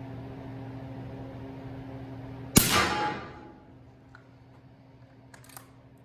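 A single suppressed subsonic rifle shot, about two and a half seconds in, from an 8-inch bolt-action .300 Blackout fitted with a Q Thunder Chicken suppressor. It is a sharp report with a short ringing tail that dies away within about a second, over a steady hum. A few faint clicks follow.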